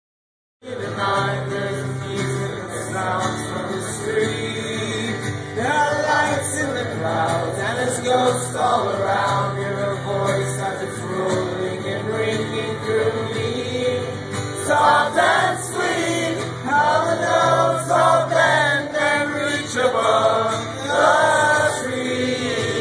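Live acoustic folk song: a man singing over an acoustic guitar, with brass instruments holding long low notes.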